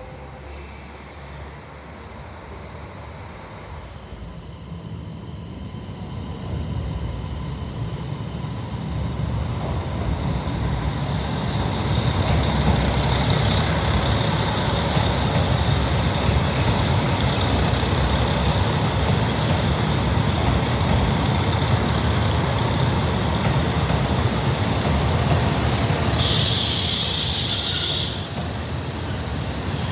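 A four-car train of KiHa 40 and KiHa 150 diesel railcars approaching and running past, its noise growing louder over the first twelve seconds or so and then staying steady. A loud hiss lasting about two seconds comes near the end.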